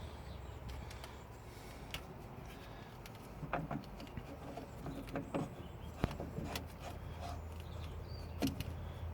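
Scattered light clicks and knocks from metal parts and tools being handled, over a low steady rumble; the engine is not running.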